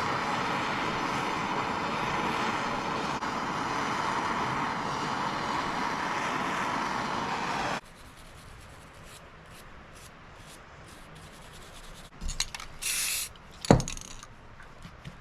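Handheld torch burning with a steady roaring hiss for about eight seconds, then shut off abruptly. Afterwards come a few light clicks, a short burst of noise and one sharp knock near the end.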